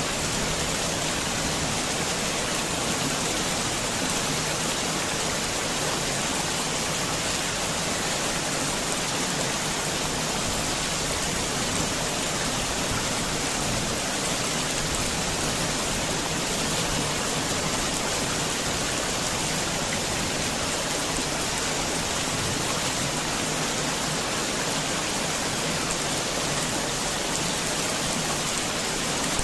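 Heavy rain falling steadily: a dense, even hiss of rain on surfaces.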